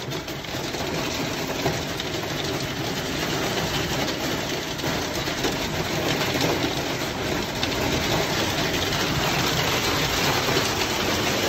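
Hailstones pelting a vehicle's roof and windshield: a dense, steady rattle of countless small impacts heard from inside the cab, growing a little louder in the second half.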